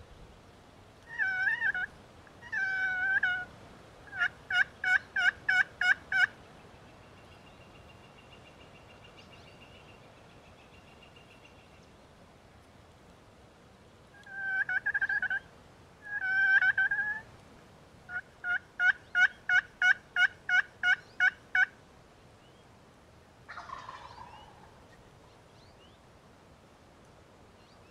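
Wild turkey calling in two bouts: each opens with two drawn-out notes and runs into a quick series of short notes, the first series about seven notes and the second about a dozen. A brief falling call sounds near the end.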